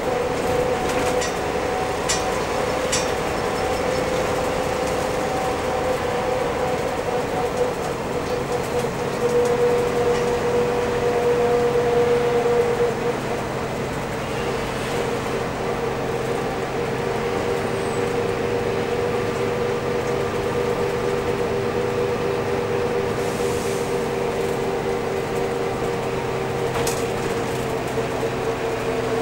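Mercedes-Benz O305 bus under way, heard from inside the cabin: the 200 hp OM407 diesel engine and W3D 080R three-speed automatic transmission running with a steady whine over road noise. The drive grows louder for a few seconds about ten seconds in, then eases off.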